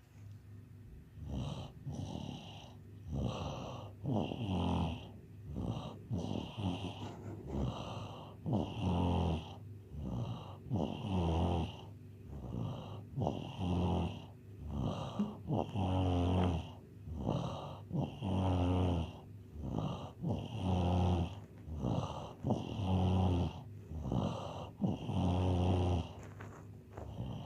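Domestic cat snoring in its sleep: a steady rhythm of snoring breaths, a louder one about every two and a half seconds with softer ones in between.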